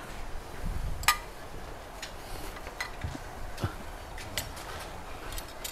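A few light clinks of ceramic plates and cutlery being handled on a wooden dining table, the sharpest about a second in, over a low background rumble.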